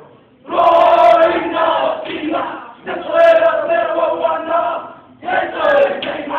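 A group of men chanting a haka in unison: loud shouted phrases of about two seconds each, after a brief pause at the start.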